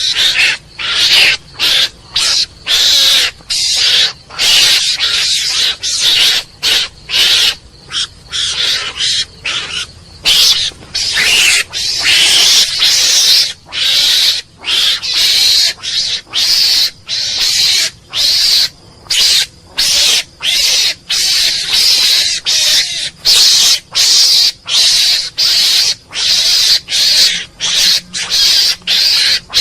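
Mongoose calling: a long run of short, harsh, high-pitched calls, one to two a second, each broken off by a brief pause.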